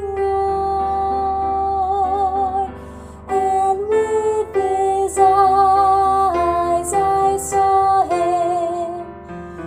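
Music: a slow melody sung in long held notes with vibrato over an accompaniment, with a brief pause about three seconds in.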